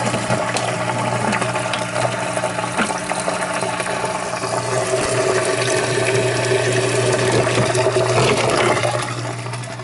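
Washing machine drain pump running during a diagnostic test, humming steadily as it pumps water out of the tub, showing the drain is working. The sound eases off near the end.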